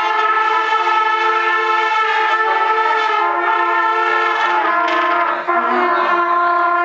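A trumpet section holding a loud sustained chord of several notes together, shifting to new notes about five seconds in and stopping near the end.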